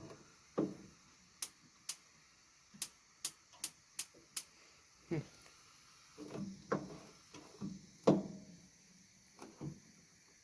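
Gas barbecue's push-button igniter clicking sharply seven times in quick succession, as a burner is being lit. In the second half come several duller knocks of handling the grill.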